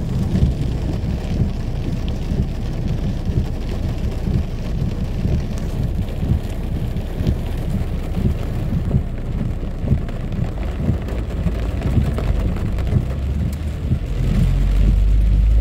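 Heavy rain drumming on a car's roof and windscreen, heard from inside the car: a dense, uneven patter of drops. A low rumble swells near the end.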